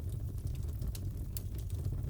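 Wood fire crackling in a fireplace: scattered sharp pops and snaps over a steady low rumble of the flames.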